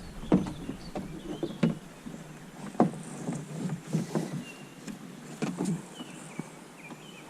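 Irregular knocks and taps of handling on a kayak while a rock bass is measured, with faint bird chirps.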